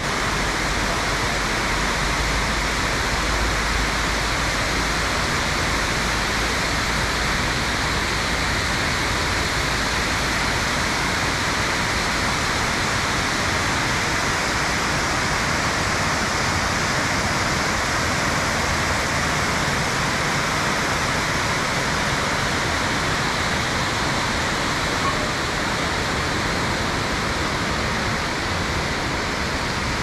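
Ravana Falls, water pouring down rock cascades into a pool: a steady, unbroken rush of falling water.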